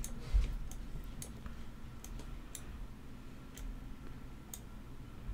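Computer mouse clicking: sharp single clicks at irregular spacing, roughly one a second, over a faint low room hum.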